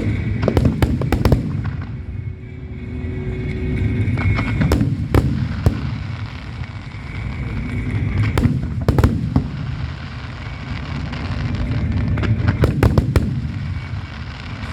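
Aerial fireworks display: a continuous deep rumble of shells bursting, broken every few seconds by clusters of sharp, crackling reports.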